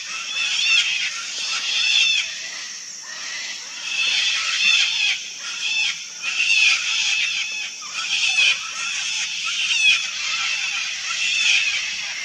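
A flock of sulphur-crested cockatoos screeching: harsh, rough shrieks from several birds overlapping, with a fresh call about every second.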